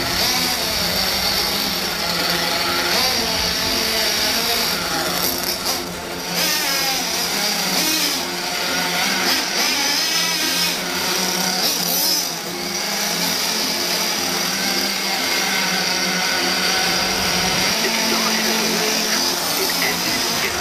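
The small SH .28 glow-fuel nitro engine of a 1/8-scale RC monster truck running under throttle as the truck drives, its high-pitched whine rising and falling with the revs.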